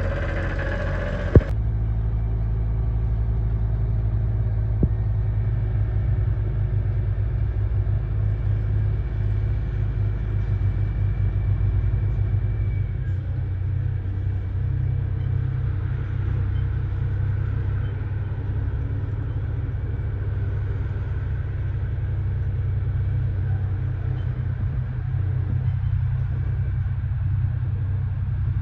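Heavy construction machine's engine running steadily, a low even drone, with a sharp click about a second and a half in.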